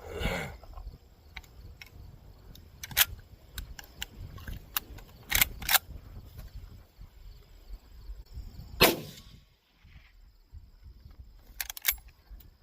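A Winchester Model 94 .30-30 lever-action rifle firing a couple of sharp shots, with the metallic clacks of the lever being worked between them.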